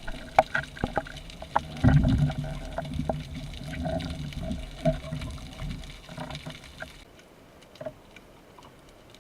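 Water sloshing and bubbling with scattered sharp clicks, and a louder burst of low rumbling about two seconds in. The sound becomes quieter about seven seconds in.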